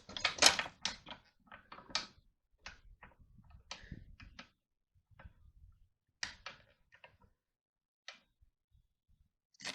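Irregular light clicks and metallic taps from handling a car suspension strut and tools, busiest in the first couple of seconds and thinning out after about five seconds.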